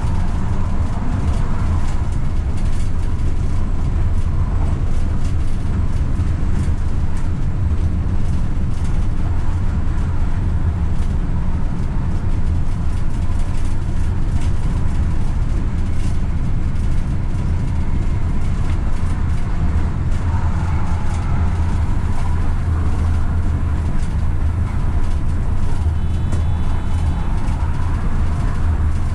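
AVG Stadtbahn tram-train running at speed on open track, heard from the driver's cab: a steady low rumble of wheels on rail, with a faint whine that rises and falls now and then.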